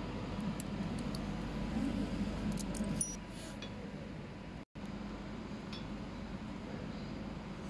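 Light clinks and ticks of MoSi2 heating element rods and their fittings being handled, a few sharp taps in the first few seconds, over a steady workshop hum. The sound cuts out for an instant about two-thirds through.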